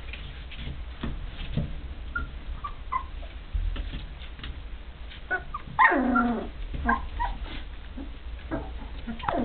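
A litter of three-week-old Rhodesian Ridgeback puppies squeaking and whimpering as they tussle, with a few short squeaks and one longer whining cry about six seconds in. Small knocks and scratches as they scramble over each other on the wooden floor.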